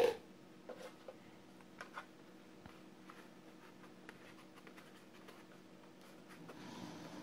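Hard plastic toys handled on a table: a sharp knock as one is set down, a few light clicks, then soft rustling as a toy walkie-talkie is turned over in leather-gloved hands near the end.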